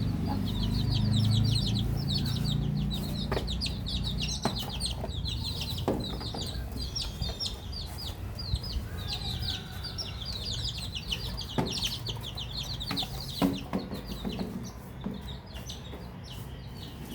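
Young chicks peeping, many short high-pitched cheeps in quick succession throughout, with a few sharp knocks now and then.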